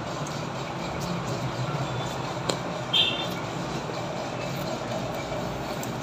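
Steady background rumble, with a faint click about two and a half seconds in and a brief high squeak just after.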